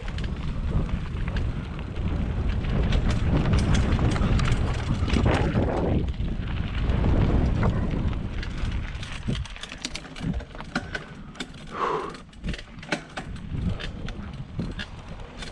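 Mountain bike riding fast down a dirt flow trail, with heavy wind on the microphone and tyre rumble. After about eight seconds it eases to the rattles and clicks of the bike over the bumps.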